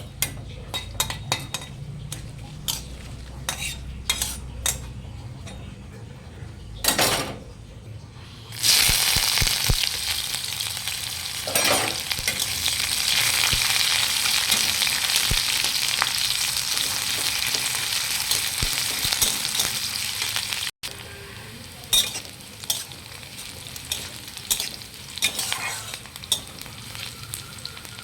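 Scattered clinks and scrapes of a utensil in a pan. About eight seconds in, food hits hot oil with a sudden loud sizzle that slowly dies down before cutting off abruptly; utensil knocks then resume.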